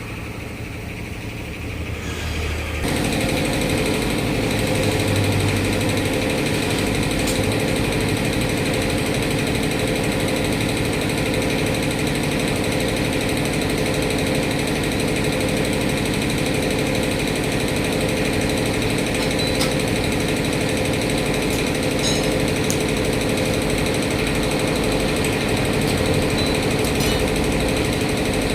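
A machine running steadily with a fast, even rattle, growing louder over the first three seconds and then holding steady.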